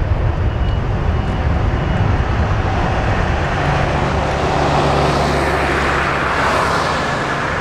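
Boeing 787-9's Rolls-Royce Trent 1000 turbofans at takeoff thrust as the airliner accelerates down the runway: loud, steady jet noise with a low hum underneath, the rushing hiss growing brighter about three-quarters of the way through.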